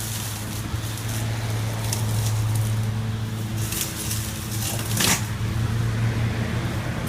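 EGO 56V battery lawn mower running with a steady low hum from its spinning blade, with crackling on top and a brief loud rasp about five seconds in.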